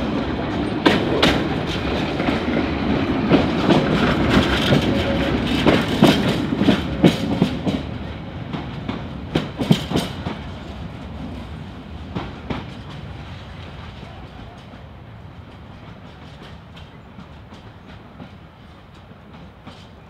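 Wheels of a train of open-sided narrow-gauge passenger coaches clicking over rail joints as the train rolls past and away. The clatter is loud at first, then thins out and fades over the second half, leaving a faint rumble.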